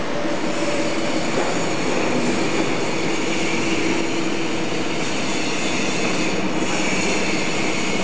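Hydraulic scrap car baler running under load, its lid pressing a scrap car body flat in the chamber: a loud, steady machine noise with a held whine.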